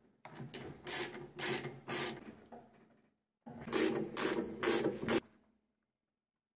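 Ratchet wrench clicking in repeated strokes, about two a second, as a socket turns the bolts that hold together the plastic tub halves of a washing machine. It runs in two bursts with a short pause between them and stops about five seconds in.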